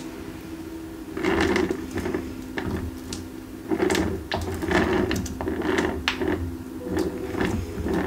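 Plastic piping bag of heavy-body acrylic paint being squeezed through a large petal tip while the plate under it is turned, giving short rustling and scraping bursts, one every second or so, starting about a second in.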